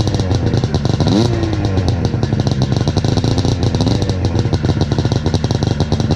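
Snowmobile engines running at idle, with a quick rev about a second in that falls back slowly, and a smaller rev near four seconds.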